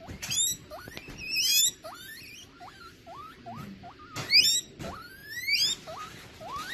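Guinea pig wheeking: a run of short rising squeaks, broken by four or five louder, higher rising whistles.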